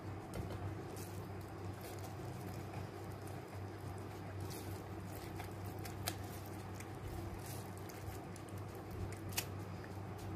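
Hands scooping and pressing wet rice mahshi filling into hollowed vegetables: soft squishing and rustling with a few short sharp clicks, over a steady low hum.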